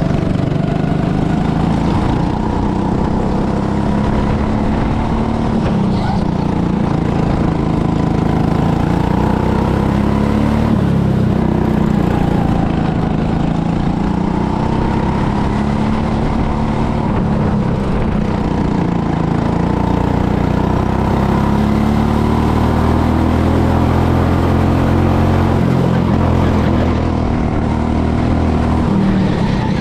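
Go-kart engine running hard from the driver's seat, its pitch rising and falling over and over as the throttle is opened on the straights and eased into the corners.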